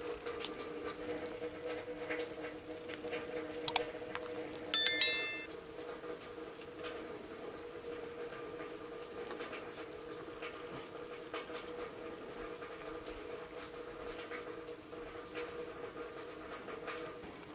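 Faint clicks and rustles of people eating by hand over a steady low hum. About five seconds in there is a brief, bright ringing chime, the loudest sound.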